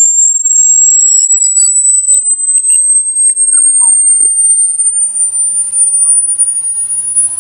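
Electronic rat-repellent tone played through a speaker: a single loud, high-pitched pure tone that climbs slowly and steadily in pitch. It is meant to drive rats away.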